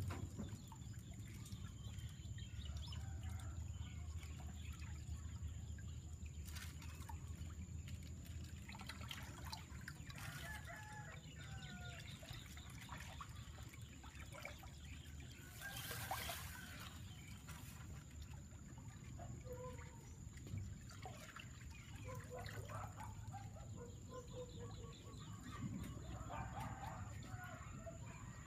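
Water trickling and sloshing around a plastic bag of catfish held in the river, with chickens clucking on and off in the background over a steady low hum.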